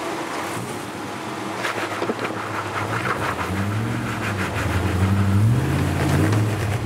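Nissan Patrol GQ's engine revving under load as the truck climbs a rock step, the pitch rising and falling in surges, louder from about the middle on.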